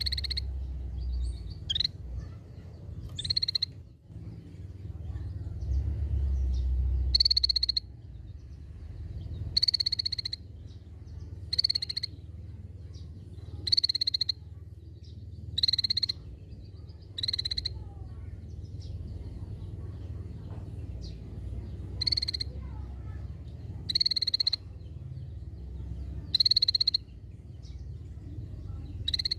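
Scaly-breasted bulbul repeating a short, harsh call note about every two seconds, a dozen or so times, over a low background rumble.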